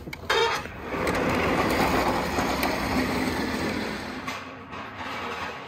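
Manual pallet jack loaded with an engine crate rolling over pavement: a dense, rattling rumble from its wheels. A sharp knock comes at the start, and the rumble fades out near the end.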